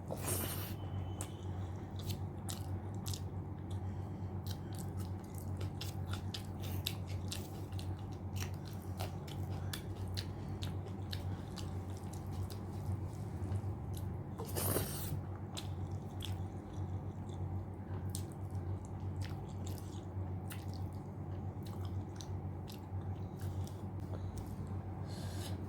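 Close-up chewing and wet mouth clicks of someone eating rice and mutton curry, irregular and continuous, over a steady low hum. Two louder noisy bursts stand out, one right at the start and one about halfway through.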